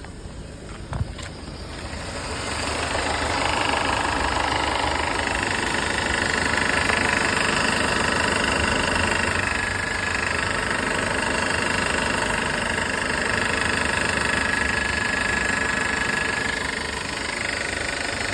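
Mercedes-Benz W204's M271 four-cylinder petrol engine running with a rattling noise. A single sharp click comes about a second in, and the engine gets louder about two seconds in, with a steady high whine over the running until near the end.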